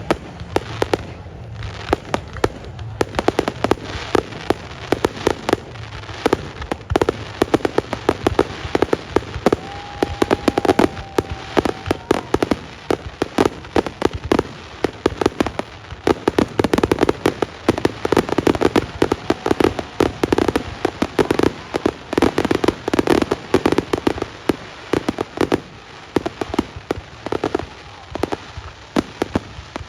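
Fireworks display: a dense, continuous barrage of crackling pops and bangs, many per second, thickest in the second half.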